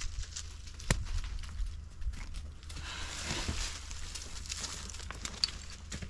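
Stone being handled among loose rock and dry leaves: a sharp knock about a second in, then a few seconds of scraping and rustling.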